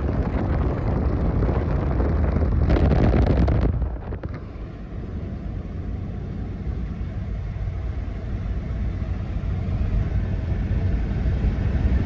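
Wind and road noise rushing in through the open window of a 1981 Toyota Carina on the move. About four seconds in it drops to a quieter, steady low rumble of the engine and tyres heard inside the cabin.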